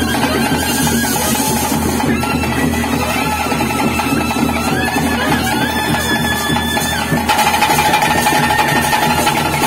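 Bhuta kola ritual music: dense, steady drumming with a wind instrument holding long melody notes that step in pitch. A louder, higher held note enters about seven seconds in.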